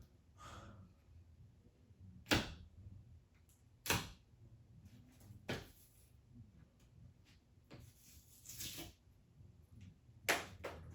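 Faint low hum of a running ceiling fan, with sharp clicks or knocks every second or two and a short rustle about eight seconds in.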